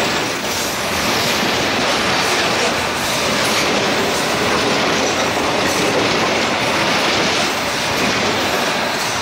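Freight train's wagons rolling past, a steady, loud noise of steel wheels running on the rails.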